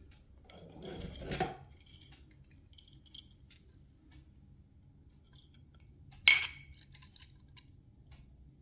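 Steel knife blade drawn along an oval honing steel: one scraping stroke about a second in, then a sharp metallic clink near the end, the loudest sound, followed by a few light ticks of metal on metal.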